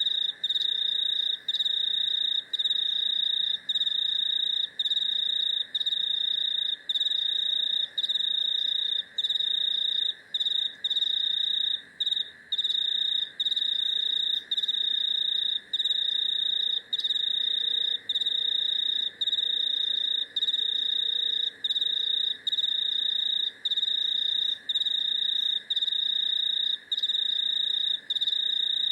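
A cricket's high, steady trill, broken by short pauses about once a second, over a fainter, lower continuous buzz.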